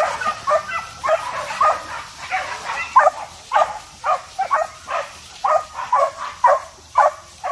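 Young hunting dogs yelping repeatedly in short, sharp calls, about two a second.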